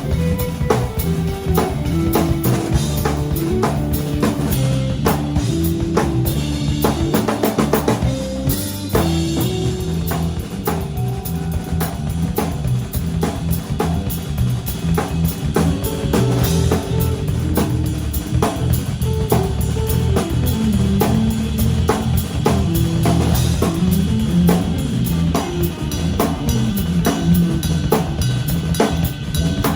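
Small live band playing an instrumental groove: drum kit with kick, snare and rimshots over an electric bass line, with guitar. A quick run of drum hits comes about eight seconds in.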